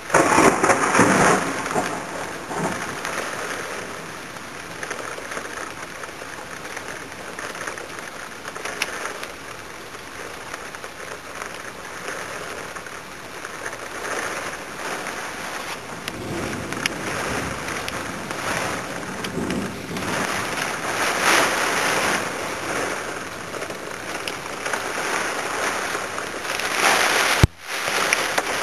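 Heavy wind-driven rain pouring down in a severe thunderstorm, a steady hiss that surges louder with the gusts, hardest about a second in and again several times later. The sound cuts out for an instant near the end.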